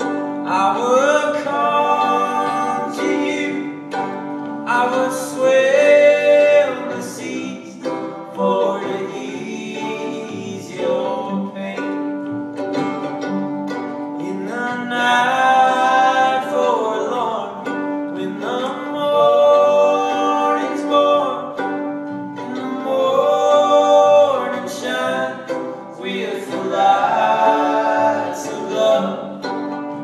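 Live folk song: a singing voice over violin and upright double bass, with plucked strings.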